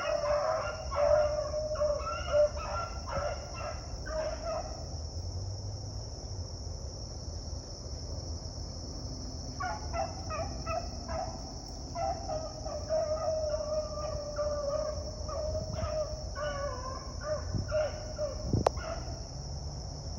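Beagles baying on a rabbit chase: quick, repeated barks in a pack, breaking off for several seconds in the middle, then starting up again. A steady high insect drone runs underneath.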